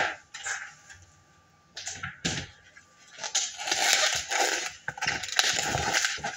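Kitchen handling noises: a few sharp knocks and clicks in the first two and a half seconds, then about three seconds of dense rustling and crackling, dotted with more clicks.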